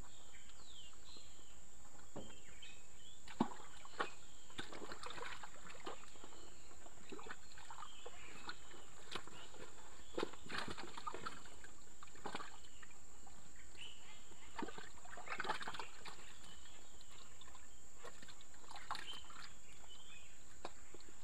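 Muddy ditch water sloshing and splashing in scattered bursts, with a few sharp knocks, over a steady high insect drone and small chirps.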